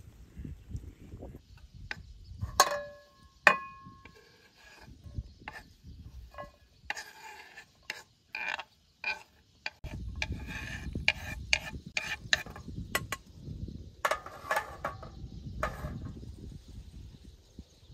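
Kitchen knife chopping vegetables on a wooden cutting board: an uneven run of sharp knocks. Two ringing clinks come about three seconds in, and a low steady rush joins the knocks about ten seconds in.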